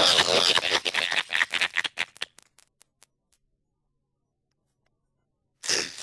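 Skype call audio breaking up: a garbled, robotic-sounding voice stutters into choppy clipped fragments over the first three seconds, then drops out into dead silence. Sound cuts back in abruptly near the end.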